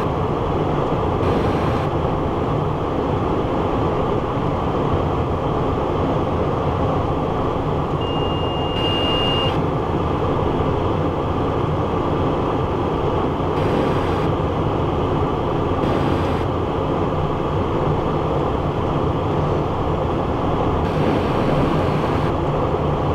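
Steady cockpit noise of a Cessna Citation Encore jet on final approach with its landing gear down: airflow and the hum of its Pratt & Whitney PW535 turbofans. A short steady high beep sounds about eight seconds in.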